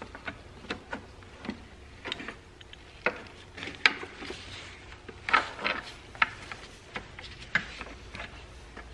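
Irregular light clicks and knocks of car parts and a socket wrench being handled in an engine bay, with a few louder knocks about halfway through.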